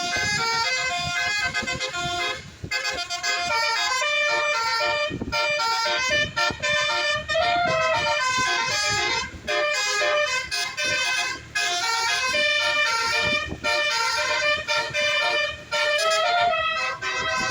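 A bus's basuri 'telolet' multi-tone musical air horn playing a quick tune of stepped notes, several tones sounding together, with short pauses between phrases.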